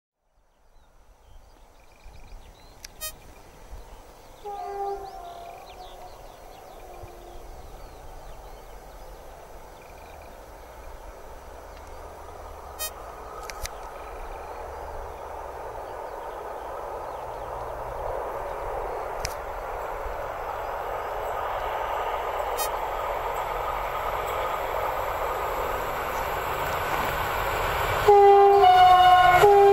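SU42-class diesel locomotive hauling a passenger train as it approaches. It sounds a brief two-note horn about five seconds in, and its engine and wheel noise grow steadily louder. Near the end comes a long, much louder horn blast.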